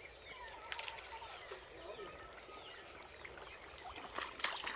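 A hand groping through wet mud and shallow water, with a few squelches and small splashes, more of them near the end.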